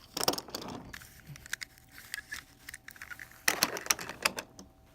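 Diecast toy cars being handled and moved: clusters of small, sharp clicks and clatters, with a busy burst at the start and another about three and a half seconds in.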